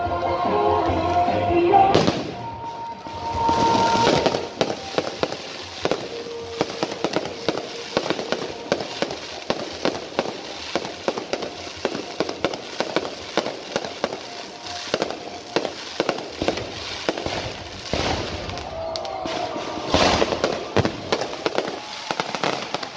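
Aerial fireworks display: a dense, continuous crackling and popping of bursting shells and crackling stars, with louder bursts about two seconds in, about four seconds in, and near the end.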